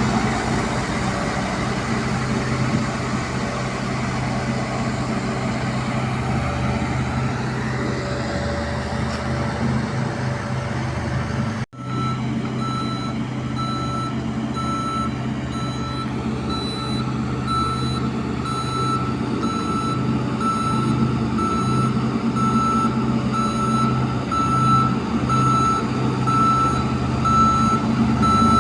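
Heavy truck engine running steadily; after a sudden break about twelve seconds in, a reversing alarm beeps at an even pace over the engine.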